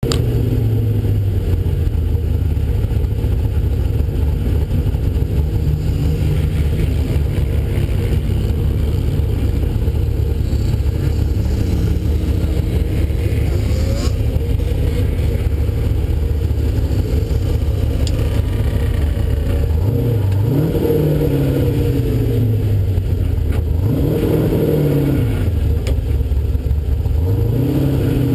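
Off-road sand vehicle engine idling low and steady, then revved up and back down three times in the last third, as it pulls away across the sand.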